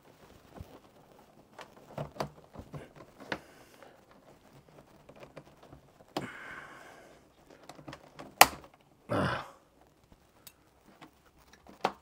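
Pry tool working at the plastic back cover of a Lenovo all-in-one PC to free a stuck corner: scattered light clicks and taps, a short scrape about six seconds in, a sharp click just past eight seconds, a brief rush of noise just after, and another click near the end.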